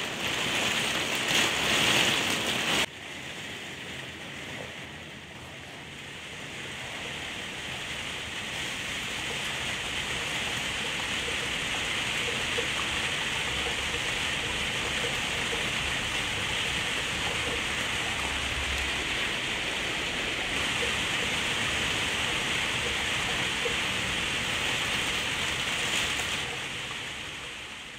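Steady rain, loud for the first few seconds and cut off abruptly, then a softer even hiss of rain that swells a little and fades out near the end.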